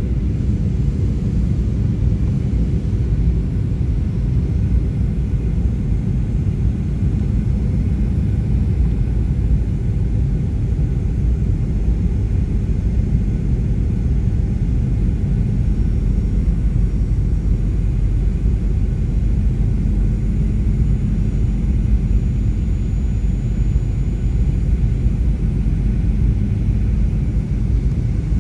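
Steady low rumble of an airliner's engines and airflow, heard inside the passenger cabin on the approach to landing.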